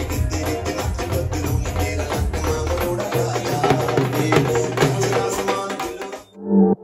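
Dhol drums beaten in a fast, steady rhythm over loud dance music. Near the end it gives way to a different, slower piece of music with pulsing notes.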